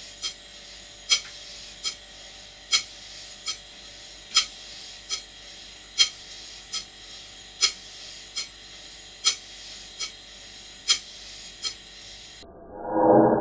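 Large model steam engine running slowly, with a sharp metallic click about four times every three seconds, alternating louder and softer clicks. Near the end the clicking stops and a louder, muffled rushing sound swells up.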